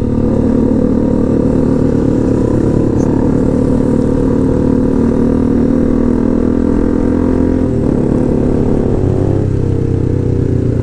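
Motorcycle engine running loud with its muffler off, exhausting straight through the bend pipe. Its pitch drops about eight seconds in.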